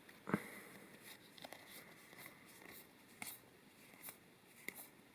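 Magic: The Gathering trading cards being handled and slid past one another while going through a booster pack: faint soft clicks and rustles, a few at a time.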